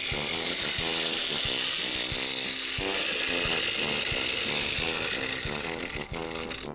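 Clockwork motor of a wind-up toy train whirring and rattling as it runs after being wound, with music underneath; it falls away near the end.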